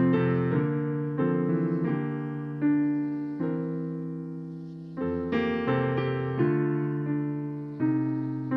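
Solo piano music: slow chords struck one after another and left to ring and fade, with a quieter stretch near the middle.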